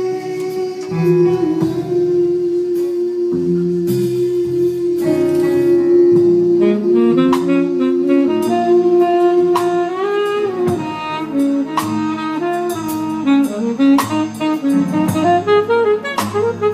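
Live band playing an instrumental break between sung lines. A lead melody instrument holds one long note for about ten seconds, then plays a run of rising and falling notes over bass and drums.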